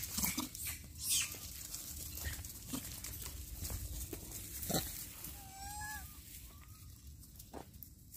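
Rhesus macaques making short calls in quick, scattered bursts, with a few arched, whistle-like calls around six seconds in.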